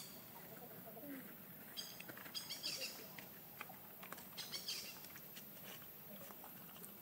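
A few faint, short high chirps about two seconds in and again past the middle, over quiet outdoor ambience with scattered small clicks.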